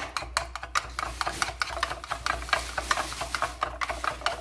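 A metal spoon beating raw eggs in a bowl, clinking rapidly and irregularly against the bowl's sides and bottom, over a steady low hum.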